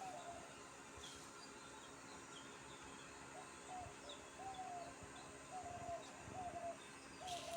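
Caged birds calling faintly: a series of short, slightly falling low notes repeated about once a second, mostly in the second half, with a few faint high chirps, over a faint steady hum.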